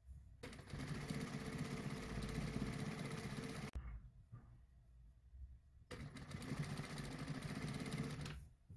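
Industrial sewing machine stitching knit fabric, running in two spells of about three seconds each with a short stop between them as the fabric is repositioned.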